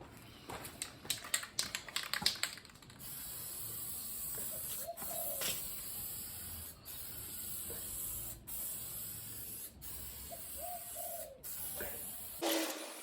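Paint being sprayed onto the hung-up ladder rack brackets: a steady spray hiss in long passes, broken by short pauses between strokes. It is preceded by a quick run of rapid clicks in the first two seconds.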